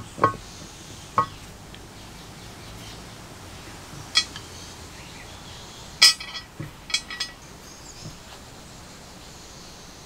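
Sharp metallic clinks and taps as small slotted pins are set into holes in a cast-metal forge blower housing. There are a few separate clinks, the loudest about six seconds in, followed by a quick run of lighter clicks.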